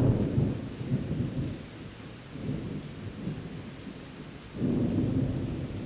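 Thunder rumbling over steady rain: a sudden deep clap right at the start that rolls on and fades, then a second rumble breaks in about four and a half seconds in.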